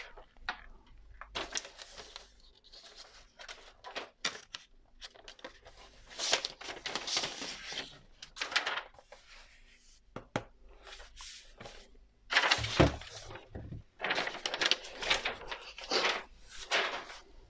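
Unpacking noise as a laptop-style lapdock is taken out of its packaging: irregular rustling and scraping of wrapping, with a single louder thunk about two-thirds of the way through.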